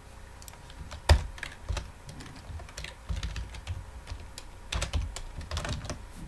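Computer keyboard keystrokes at an irregular pace while code is edited, with one sharp, louder key strike about a second in and a quick run of keystrokes around the five-second mark.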